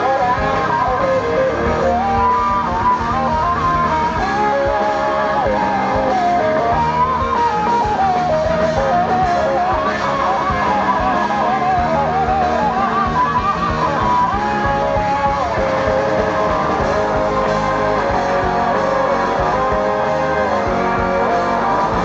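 Live blues-rock band playing, led by a pedal steel guitar with sliding, wavering melody notes over electric bass and drums.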